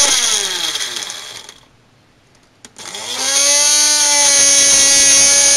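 Small electric grinder jar chopping a roughly cut onion, run in two pulses: the motor winds down over the first second and a half, then after a click it spins up again about three seconds in and runs steadily.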